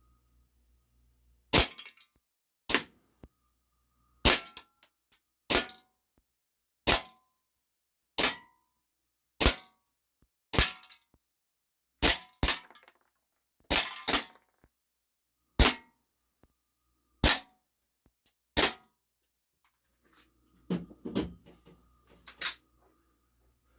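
ASG Steyr L9-A2 CO2 blowback airsoft pistol firing fifteen shots at an uneven pace of about one a second, with 0.25 gram BBs striking an aluminum can, some hits leaving a short ring. A few softer knocks and rustles follow near the end.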